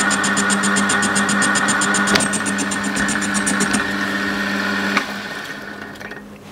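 Small benchtop metal lathe running with a steady motor and gear whine as the tool turns a cast aluminium block, with a rhythmic high ticking that stops a few seconds in. A click about five seconds in, after which the lathe is switched off and the whine fades as the spindle runs down.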